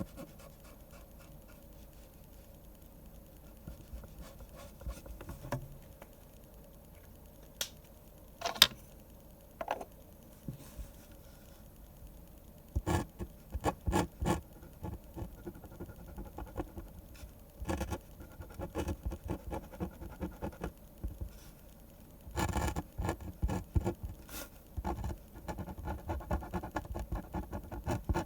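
Pen nib scratching across paper in short strokes, sparse at first and quicker and denser from about halfway on, with one sharp tap about eight seconds in.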